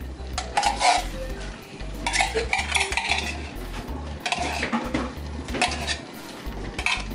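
Metal spoon scraping and clinking against the inside of a tin can while scooping out condensed cream of mushroom soup, with taps of the spoon over a stainless steel pan.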